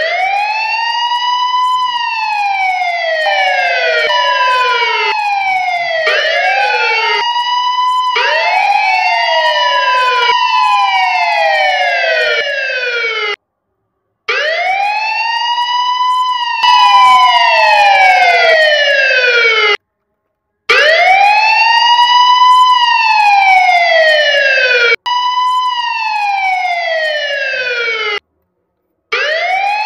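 Electronic police-siren wail, like a toy police jeep's siren: each cycle rises for about a second and a half, then falls for about two seconds, and the cycles repeat and overlap. It cuts out abruptly three times for just under a second each.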